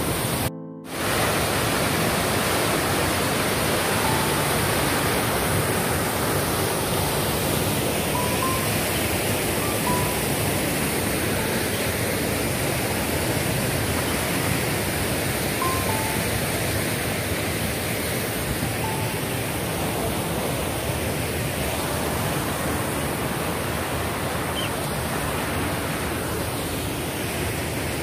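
Steady rushing noise of water, small surf breaking and a stream running into the sea, cut off for a moment just after the start. Faint short high notes come and go over it.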